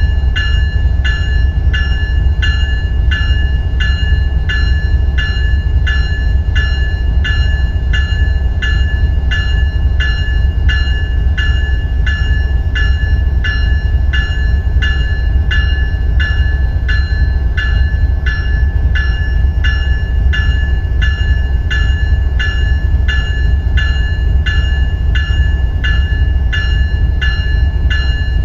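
Electronic locomotive bell (E-bell) of FSRR 4720 ringing steadily, about two strikes a second, each strike ringing out in several clear tones, over a steady low rumble.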